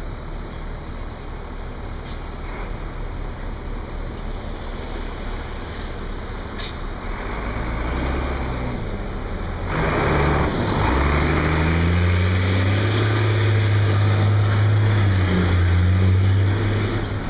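Traffic and engine noise picked up by a camera held out of a car's sunroof. About halfway through, a low engine hum sets in and rises slowly as the car pulls away, and about ten seconds in the wind rushing over the microphone suddenly grows much louder and stays loud.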